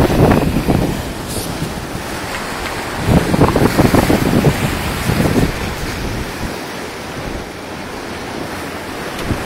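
Wind buffeting the microphone: a rushing, rumbling noise that swells in gusts, loudest from about three to five seconds in and easing off after.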